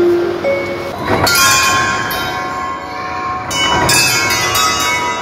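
Bell-like chimes: a struck note about a second in and another about three and a half seconds in, each ringing on in several long, overlapping tones.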